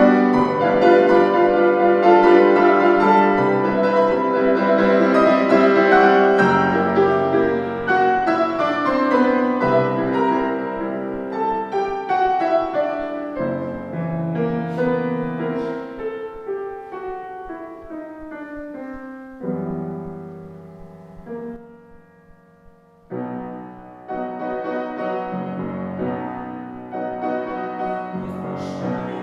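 Piano playing a solo interlude in a classical operetta accompaniment: a loud passage whose notes step downward and grow softer, nearly stopping a little over two thirds of the way through before the playing picks up again.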